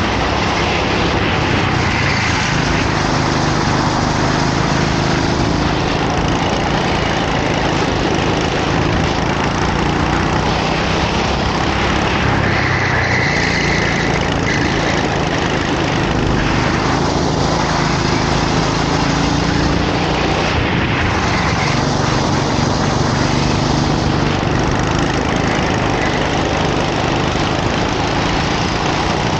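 Racing kart engine running hard, its pitch rising and falling repeatedly as the kart accelerates and slows through the lap, under a constant noisy rush.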